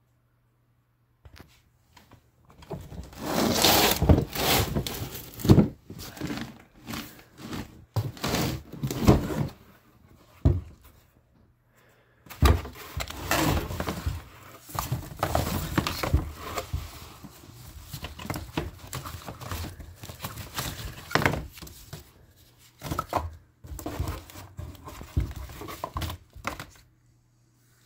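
Fireworks being rummaged through in a cardboard box: cardboard tubes and plastic-wrapped cakes knocking and sliding against each other and the box, with crinkling of the wrapping, in irregular bursts and a short lull about ten seconds in.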